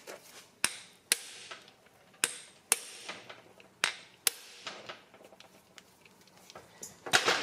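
Hammer striking a hand impact driver fitted with a Phillips bit, driven into the clutch screws of a 1975 Honda MR50 engine to break them loose: sharp metallic blows, about eight in all, mostly in pairs, each with a brief ring.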